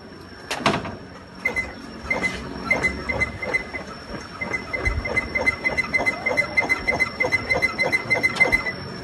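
Honda Vario 150 scooter squeaking in a quick, even rhythm, about three to four squeaks a second, as it is pumped up and down, after a single knock under a second in. It is a rubbing squeak, from a part grinding against the scooter's centre section where its rubber has worn away.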